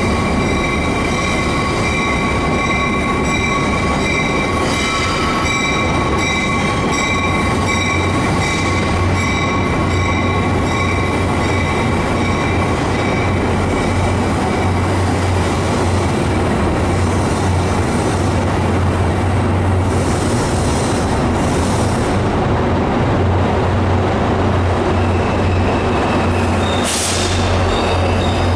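Train wheels squealing steadily on the rails, several high ringing tones held over a low rumbling run, heard from aboard the moving train. A brief hiss comes near the end.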